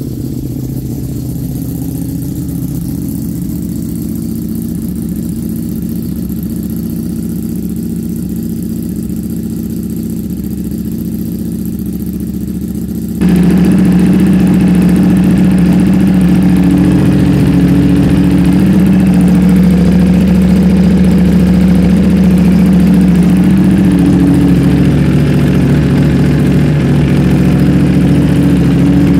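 Ducati Panigale V4 V4 engine with an Arrow exhaust idling steadily, freshly started. About 13 seconds in the sound steps up suddenly, louder and fuller, where the recording switches from a phone microphone to a USB microphone.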